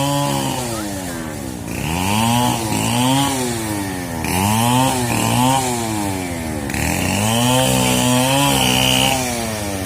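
Two-stroke chainsaw revving up and down again and again, its pitch rising and falling about once a second, as it cuts up a fallen tree.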